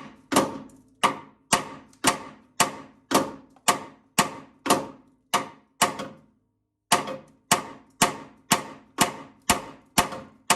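Hammer blows on a seized steel steering bellcrank pin, about two strikes a second with a short metallic ring after each, pausing for about a second midway before resuming: the pin is being driven out after heating.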